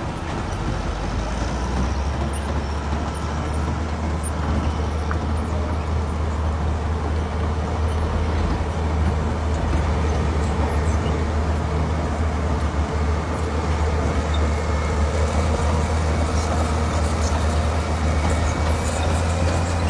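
Heavy diesel engine of a paddle scraper running steadily under load, a loud deep drone that grows a little louder about two seconds in.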